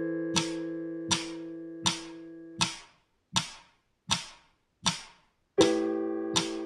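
Piano chords played deliberately wrong over a steady click about every three-quarters of a second: a chord already sounding fades out by about three seconds in, and a new one is struck on the beat near the end. These are wrong chords played in place of A minor and E minor, which the app's note recognition still scores as correct.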